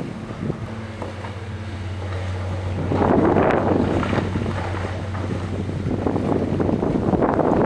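Steady low diesel drone of the backhoe dredger's engine, with gusts of wind buffeting the microphone about three seconds in and again near the end.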